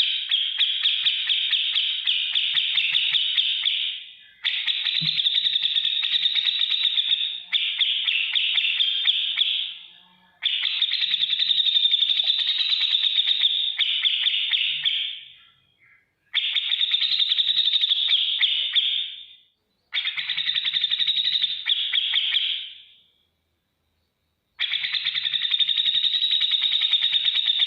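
Cucak jenggot (grey-cheeked bulbul) giving bouts of rapid, harsh chattering, ticking calls, each two to four seconds long with short pauses between.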